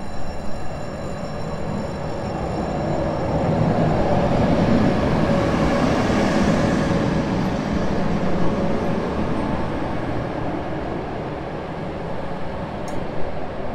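Rc-class electric locomotive rolling slowly into a station platform. A high wheel squeal fades in the first couple of seconds, then the rumble of wheels on rail swells to its loudest around the middle and eases off as the locomotive slows.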